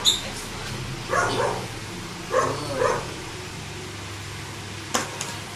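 A dog barking, about four short barks in the first three seconds, with a sharp click about five seconds in.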